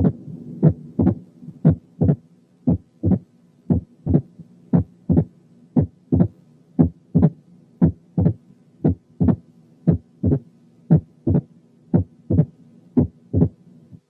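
Heart sounds of mitral stenosis heard through a stethoscope recording. A steady repeating cycle of sharp, snapping heart sounds, about two a second, in which the second heart sound is followed closely by an opening snap, over a faint steady hum.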